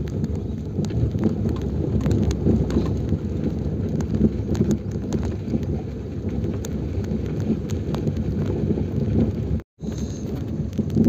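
A car crawling over a rough, stony dirt track, heard from inside the cabin: a steady low rumble of tyres on gravel and the body shaking, with scattered knocks and rattles as stones are hit. The sound cuts out for an instant near the end.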